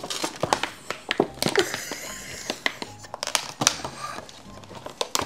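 Handling noises: scattered clicks and taps with some crinkling, as makeup packaging is opened and handled.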